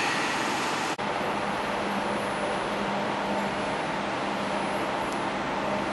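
Steady machine running noise with a faint low hum. The sound breaks off abruptly about a second in and resumes a little quieter.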